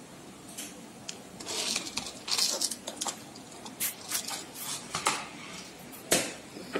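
Small metal beads clicking and rattling against a clear plastic box and a thin wire as they are picked out and threaded: irregular light clicks and short scrapes, the loudest click near the end.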